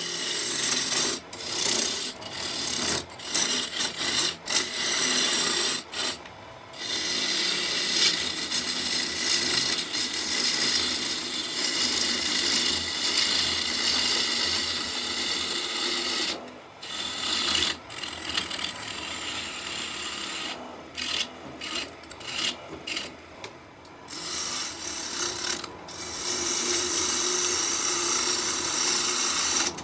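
A gouge cutting a spinning locust-wood blank on a lathe: a steady hiss of the cut, broken by short pauses as the tool comes off the wood, about six seconds in, around seventeen seconds in, and several times between about twenty and twenty-four seconds.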